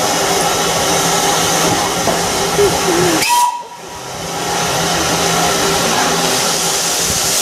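Steam hissing loudly from LSWR M7 tank locomotive 30053. The hiss cuts off abruptly about three and a half seconds in, then builds back up over the next second.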